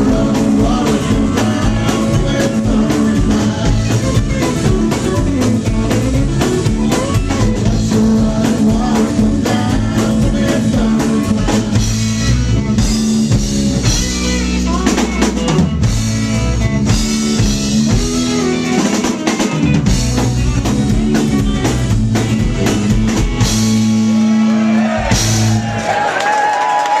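Live rock band playing an instrumental passage, the drum kit prominent with snare, rimshots and bass drum, coming to its final hits just before the end.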